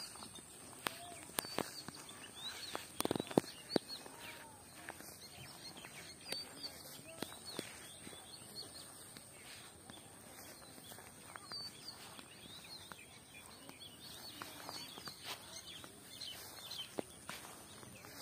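Birds chirping again and again over open-air ambience, with a thin steady high tone underneath. Scattered soft steps and clicks from walking on grass, busiest about three seconds in.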